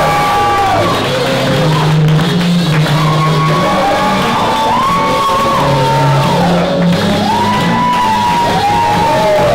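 Loud music with a steady bass line and a melody of held notes that slide between pitches, with shouts and whoops from the audience over it.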